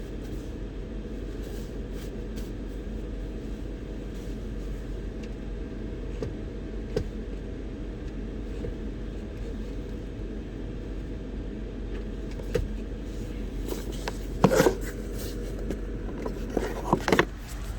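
Steady low hum inside the cabin of an idling 2004 Lexus GX 470, with a few sharp clicks and knocks near the end.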